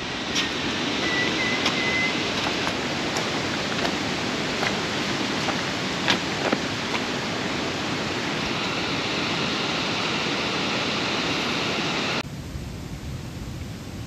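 Steady rushing of water with a few sharp ticks scattered through it. About twelve seconds in it cuts abruptly to a quieter hiss.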